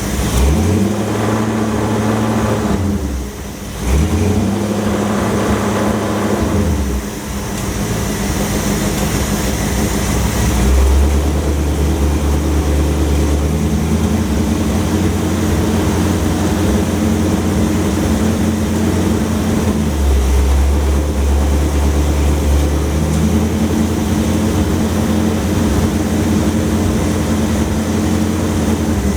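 Car engine running a 727 TorqueFlite automatic on test: revved up and back down twice, then running steadily, its pitch stepping up and down a few times as the load and gear change.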